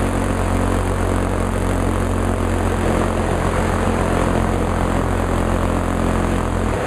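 An engine running at a steady speed: a constant low, even drone with a noisy hiss above it.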